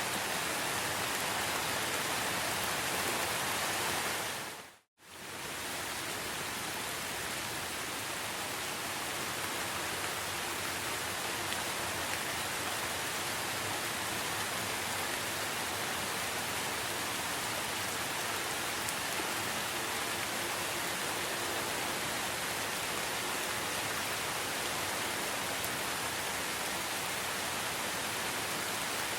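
Steady rain falling. About five seconds in it fades out briefly to silence, then comes back at the same level.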